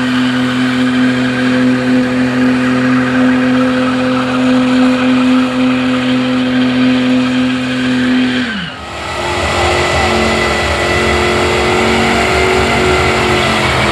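Car engine held at steady high revs during a burnout, with tyre squeal. About eight and a half seconds in, the revs drop sharply, then hold steady again at a lower pitch until the sound cuts off suddenly.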